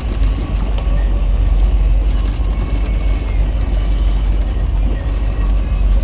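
Steady low rumble of a fishing boat underway: the motor running, with wind buffeting the microphone.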